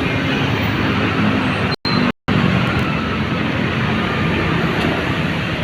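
Bus engine running amid the rumble of terminal traffic, steady throughout, with the audio cutting out twice very briefly about two seconds in.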